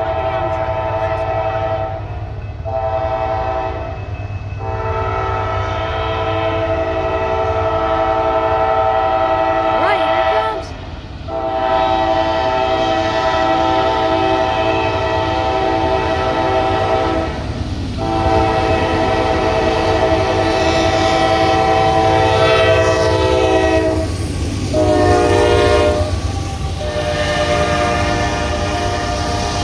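Norfolk Southern freight locomotive's horn blowing for a grade crossing: a chord of steady tones in a series of long blasts with short breaks, the last two shorter, over the steady low rumble of the approaching train.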